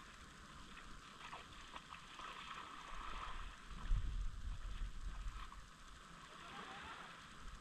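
Small waves washing gently onto a sandy beach, an even wash of water noise, with a louder low rumbling stretch about three to five seconds in.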